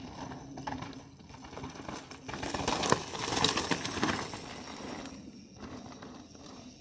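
Yeti SB160 mountain bike's tyres crunching and rattling over loose rocks and gravel, with a louder skid about three seconds in as the rear wheel slides and sprays dirt.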